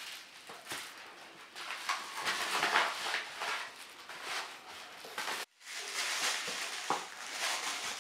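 A padded mailer envelope and paper packaging rustling and crinkling in the hands as the package is opened and its contents pulled out, in irregular bursts with a brief break about halfway through.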